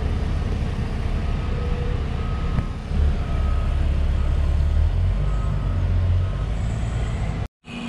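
Construction vehicle's backup alarm beeping faintly about once a second over a steady low rumble. The sound drops out for a moment near the end.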